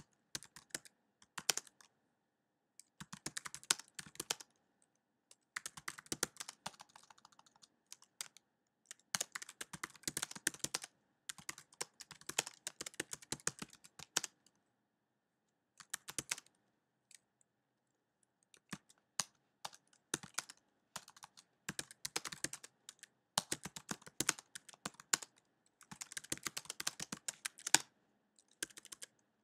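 Typing on a computer keyboard: runs of quick key clicks broken by short pauses, with a sparser stretch of a few isolated keystrokes about halfway through.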